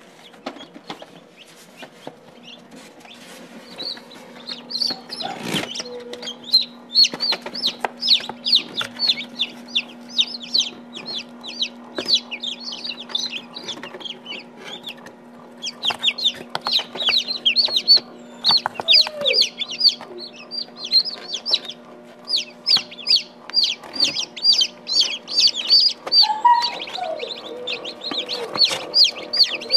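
Newly hatched chicken chicks peeping in an open incubator: rapid runs of short, high peeps that break off briefly a couple of times. A steady low hum runs underneath.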